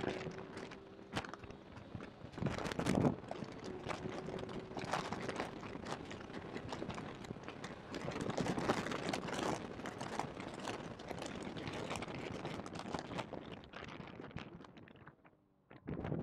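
Porsche 991.2 GT3 flat-six at full throttle through the gears, recorded by a badly placed in-car microphone. Crackling, crinkling distorted noise dominates, and the engine's tone comes through only faintly beneath it. The noise falls away near the end as the car slows hard.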